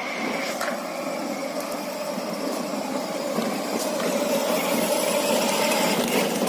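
Electric motors and gearboxes of a kids' 4x4 ride-on jeep running, a steady mechanical whine.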